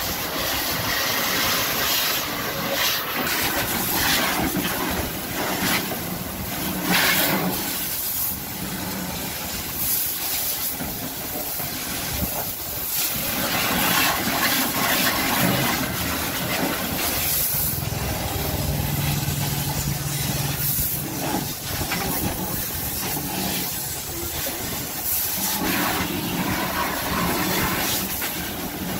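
High-pressure water jet from a pressure-washer lance hissing as it blasts a car's tyre, steel wheel and wheel arch. The spray noise rises and falls as the jet sweeps across the different surfaces.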